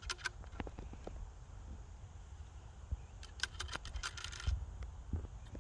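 Quick runs of small metallic clicks and rattles from handling muzzleloader loading gear as the 90-grain powder charge is measured out: a short run at the start and a longer one about three seconds in. A low rumble of wind on the microphone runs under it.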